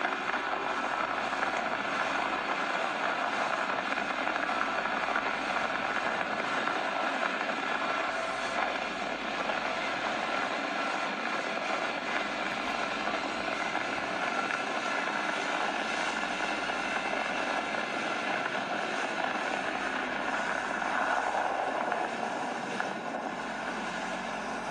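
Sea-Doo jet ski running at speed across the water: a steady engine drone mixed with rushing water.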